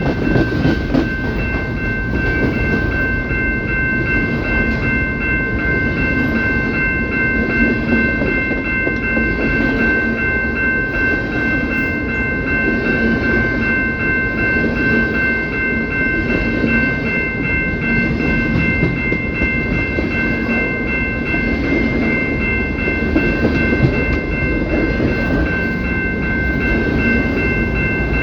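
CPKC freight train cars rolling past, wheels clacking steadily over the rail joints under a continuous rumble, with a steady high-pitched squeal held over it.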